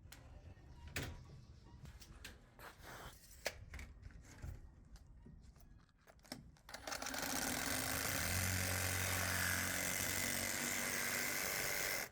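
A few light knocks and clicks, then a power tool starts about seven seconds in and runs steadily for about five seconds before cutting off suddenly.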